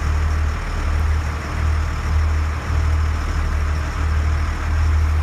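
Fishing boat's engine running steadily under way, a loud low drone that swells and fades a little, with the hiss of churning wake and wind.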